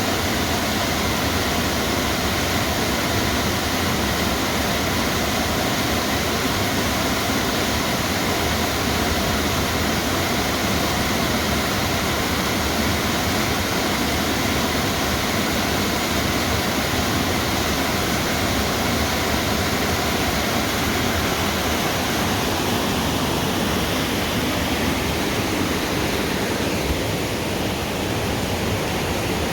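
Waterfall rushing, a steady, loud, even roar of falling water.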